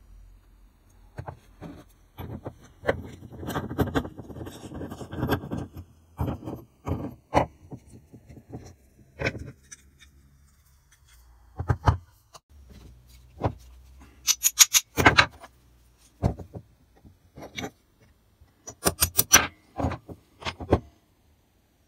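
Old vise's iron parts handled and set down on a metal workbench: scattered metal clinks and knocks, a stretch of scraping about three to five seconds in, and two quick runs of sharp, ringing metal clinks about fourteen and nineteen seconds in.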